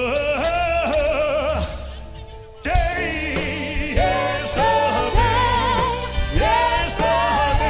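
Live band playing a slow song with lead vocal and backing singers over drums, bass and keys. The music drops back about two seconds in, then the full band comes back in louder with long held sung notes.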